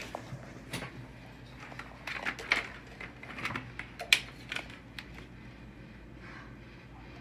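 Irregular light clicks and taps, a dozen or so spread unevenly, most of them in a cluster through the middle.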